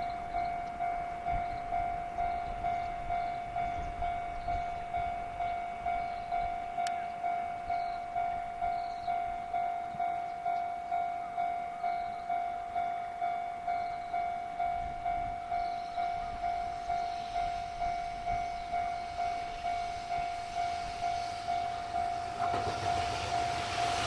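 Japanese level-crossing alarm ringing: a steady electronic bell tone repeating about twice a second. Near the end the rumble of an approaching freight train hauled by an EF210 electric locomotive starts to rise under it.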